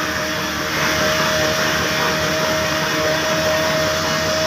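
22 hp black desi single-cylinder diesel engine running steadily with its big flywheels spinning: a continuous mechanical clatter with a steady whine over it.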